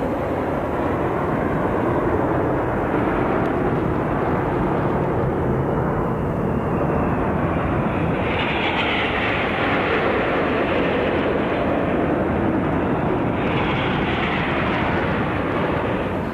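Jet aircraft flying over, a steady rushing engine noise that swells in its higher part about halfway through and again near the end.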